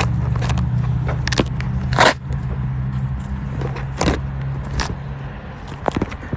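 A motor vehicle's engine idling steadily, fading out about five seconds in, with several sharp clicks and knocks over it.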